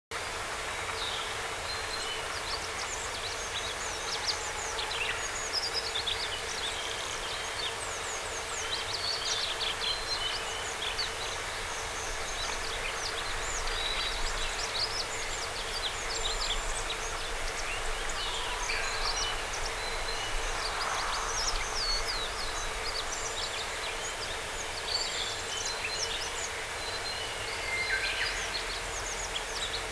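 Several wild birds calling and singing with many short chirps and quick falling notes, over a steady outdoor background noise.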